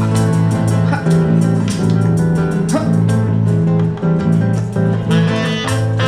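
Live band playing a dangdut song, amplified through a PA, with guitar prominent over bass, keyboard and drums.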